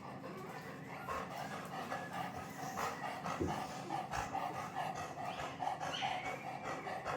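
An elderly Labrador retriever panting, the breaths coming in a steady pulsing rhythm that grows louder after about a second.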